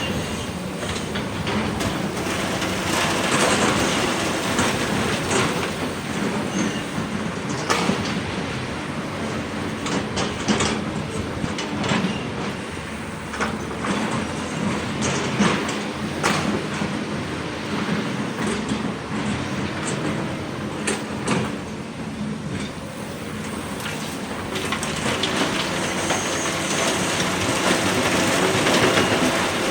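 Hydraulic excavator at work in rock: diesel engine running steadily under load, with repeated clanks and rattles scattered throughout.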